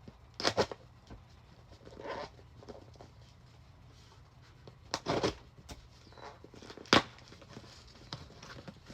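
Parcel packaging being ripped open by hand: a few short tearing bursts, the longest about five seconds in, with handling rustles and a sharp click about seven seconds in.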